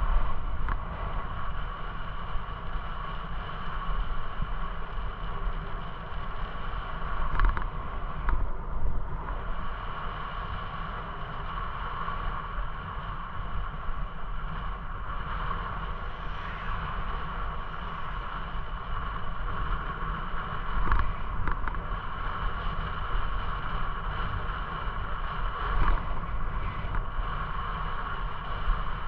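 Bicycle rolling along an asphalt path: steady tyre rumble and wind on the microphone, with a steady whine underneath and a few brief knocks from bumps in the path.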